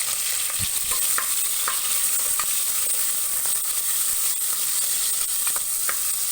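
Chopped onion and curry leaves sizzling steadily in hot oil with mustard seeds in a stovetop pressure cooker, being stirred, with a few light clicks.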